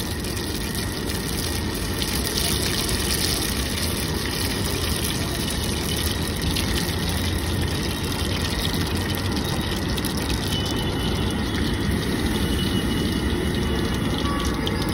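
Steady roar of a gas stove burner under a large iron pot of oil heating for tempering.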